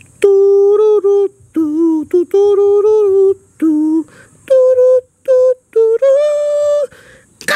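A high voice singing a short tune of about a dozen held notes, each mostly steady in pitch, in separate short phrases with brief gaps between them.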